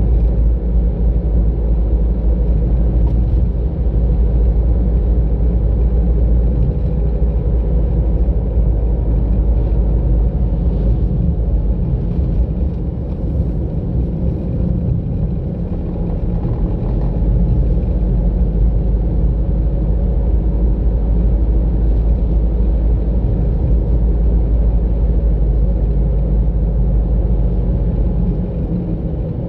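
A car driving on a road: a steady low rumble of engine and tyre noise heard from the car, easing slightly for a few seconds in the middle and again near the end.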